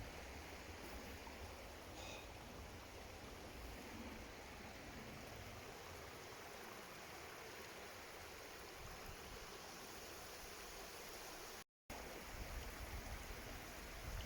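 Steady rushing of flowing stream water, an even hiss with no distinct events; the sound cuts out completely for an instant about twelve seconds in.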